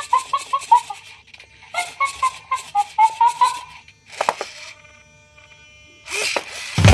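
Plastic robot monkey toy chattering through its speaker: two quick runs of short electronic hooting syllables, about four or five a second, with a louder burst of noise near the end.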